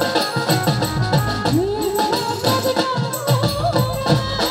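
Live band music: drums beating a regular dance rhythm, with jingling hand percussion and a gliding melody line over it.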